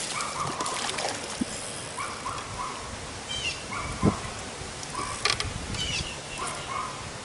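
Short high animal calls in quick groups, repeating every second or so, over steady outdoor background noise. A sharp knock comes about four seconds in.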